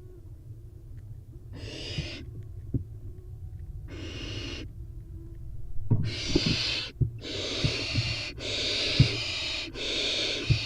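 Barn owl nestlings giving hissing food-begging screeches: two short hisses, then almost unbroken hissing from about six seconds in. Low knocks and thumps of the chicks scrambling in the wooden nest box run underneath.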